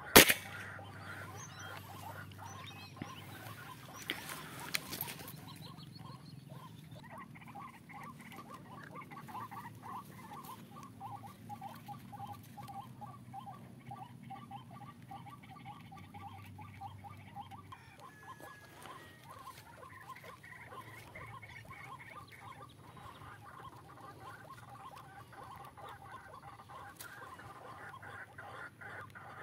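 A single sharp air rifle shot just after the start, then a few lighter clicks. From about seven seconds on, a bird call repeats in quick pulses, broken by a short pause near the middle.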